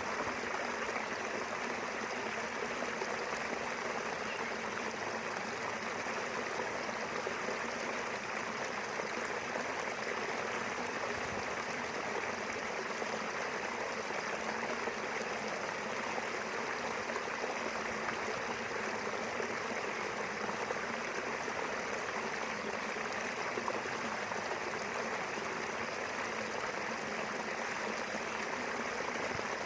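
River water running steadily over its bed: a continuous, even rush of flowing water.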